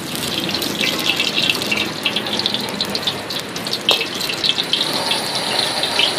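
Hot oil sizzling and crackling in a wok as a metal ladle spreads it around; the sizzle starts suddenly and goes on as a dense crackle, with one sharper click about four seconds in.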